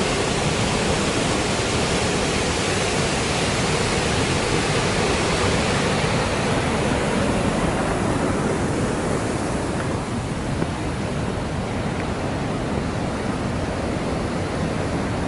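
Steady rushing of the Temperance River pouring through its narrow rock gorge, a constant roar of white water; after about six seconds its higher hiss fades and the sound turns duller.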